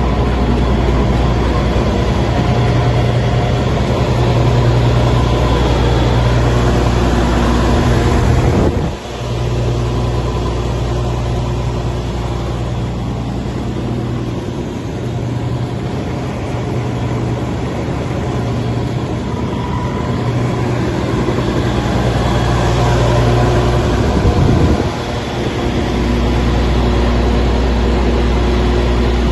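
Terex Pegson Metrotrak mobile jaw crusher's diesel engine and machinery running steadily. The sound changes abruptly twice, about nine seconds in and again near 25 seconds.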